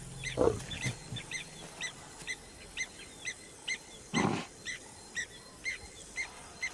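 Two short, low animal calls, a brief one just after the start and a louder one about four seconds in, over a steady run of short high chirps repeating two or three times a second.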